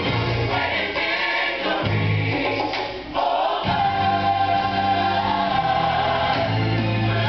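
Gospel choir music: a choir singing a worship song over low held accompaniment, dipping briefly about three seconds in.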